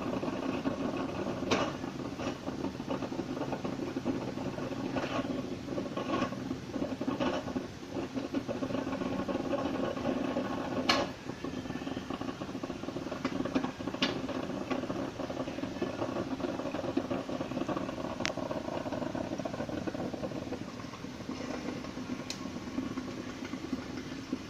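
Black & Decker drip coffee maker brewing: a steady hiss and gurgle of the heating water, with a few sharp clicks scattered through it.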